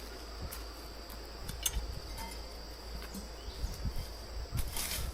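Steady high-pitched insect buzzing, with scattered light clicks and knocks over it.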